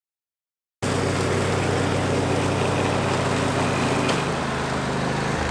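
Husqvarna riding lawn mower engine running steadily. It comes in suddenly about a second in and drops slightly in pitch near the end.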